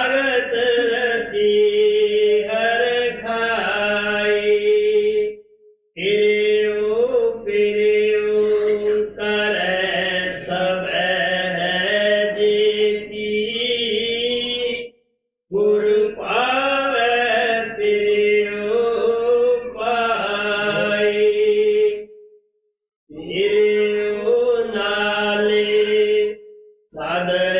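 A voice chanting a devotional hymn, holding long notes in phrases of several seconds, each broken off by a short pause.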